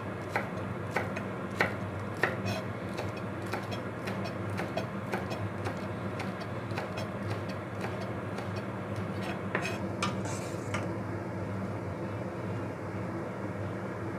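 Kitchen knife chopping spring onion tops on a wooden cutting board: even, sharp cuts a little under two a second that stop about ten seconds in. A steady low hum runs underneath.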